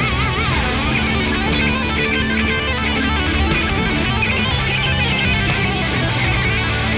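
Rock music with electric guitar over a steady beat of about two strikes a second, with a wavering lead guitar line near the start.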